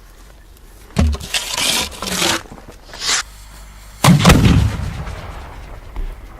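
A 6-inch aerial firework shell: a sharp low thump as it is fired from the mortar about a second in, then a loud deep boom as it bursts about three seconds later, rolling away slowly.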